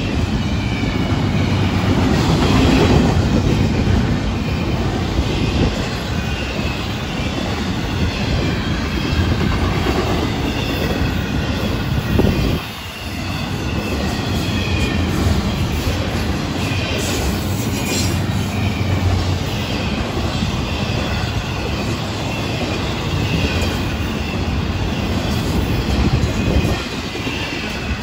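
Double-stack intermodal well cars of a freight train rolling past close by: a steady rumble and clatter of steel wheels on rail, with a wavering high wheel squeal over it and a brief dip in loudness about halfway through.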